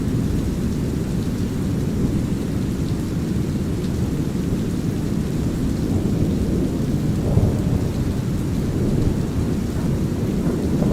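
Steady deep brown noise with light rain pattering over it, and a low thunder rumble that swells about seven seconds in.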